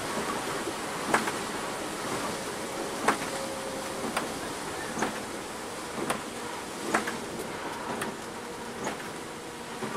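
Inside the cab of a Scania K360-engined coach driving in heavy rain: a steady rush of tyre, rain and engine noise, with sharp clicks about once a second.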